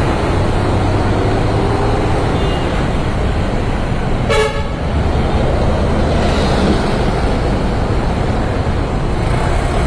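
Steady road traffic noise, with one short vehicle horn toot about four seconds in.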